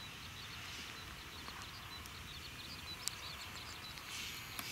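Faint outdoor ambience: small creatures keep up a fast, even run of short high-pitched chirps.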